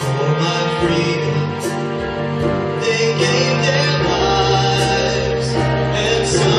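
A man singing the opening of a Christmas duet into a handheld microphone, over instrumental accompaniment; the voice comes in at the start, after an instrumental introduction.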